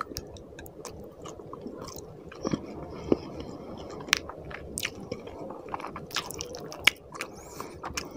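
A person chewing a mouthful of rice and fish curry close to the microphone: wet, soft mouth noises with sharp clicks and smacks scattered throughout.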